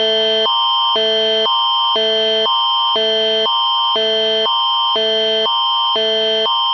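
Canadian Alerting Attention Signal: two electronic chords alternating about twice a second over a steady high tone, the attention signal of an emergency alert broadcast.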